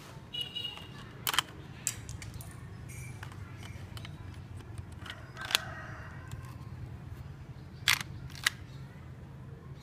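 Sharp plastic clicks from a LEGO model Glock 18 pistol, about five spread irregularly over a low steady hum.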